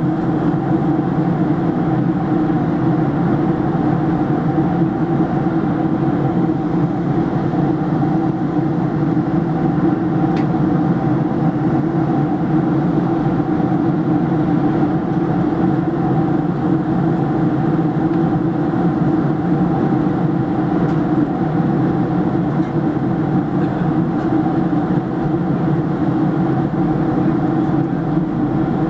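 Steady in-flight cabin drone of a Boeing 737-700: its CFM56-7B turbofan engines and the airflow past the fuselage, heard from a seat over the wing, a constant roar with a low hum of several steady tones.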